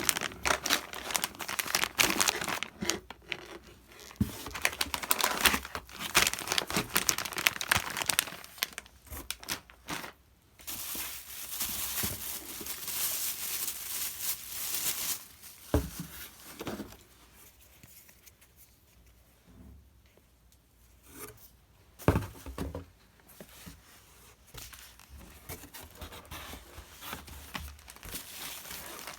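Packaging being unwrapped by hand: dense crinkling and tearing, then a few seconds of steady rushing noise, then quieter rustling with a couple of sharp knocks.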